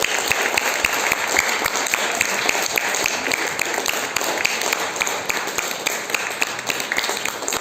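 Audience applauding: many hands clapping in a dense, even patter that eases off a little near the end.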